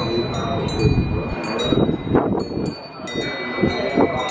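Many small temple prayer bells ringing and tinkling, their high, overlapping tones struck again and again like wind chimes, over a low background rumble.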